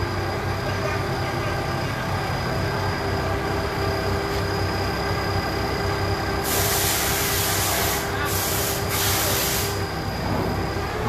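CNC machines running steadily, a hum with a fixed whine of several steady tones. About six and a half seconds in, a loud hiss of air or spray starts and lasts about three seconds, broken twice before it stops.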